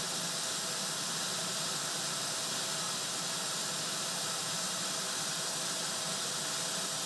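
Hot air rework gun blowing a steady hiss, held off the board for a moment while the solder pads stay warm.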